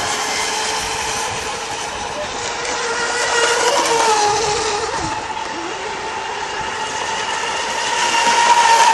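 Radio-controlled Mono1 racing boats running at speed: a steady high motor whine that drifts slightly in pitch, swelling louder about four seconds in and again near the end as boats pass.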